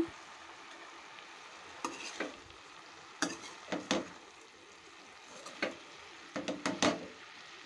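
Metal spatula stirring amaranth leaves in a metal kadai, scraping and clinking against the pan several times, over a faint steady sizzle of the greens frying.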